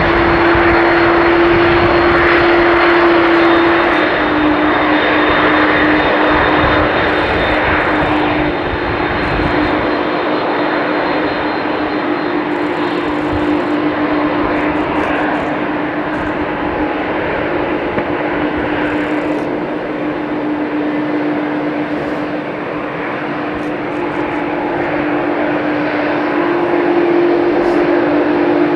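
McDonnell Douglas MD-11F's three jet engines running loud and steady, with a steady hum tone above the engine noise; the deep rumble drops away about ten seconds in.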